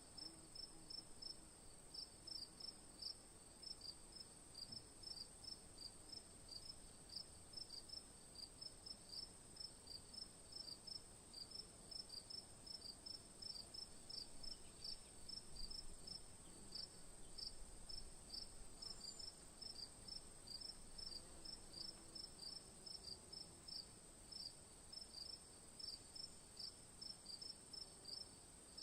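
Cricket chirping steadily, short high chirps repeating a few times a second, over a constant faint high-pitched hiss.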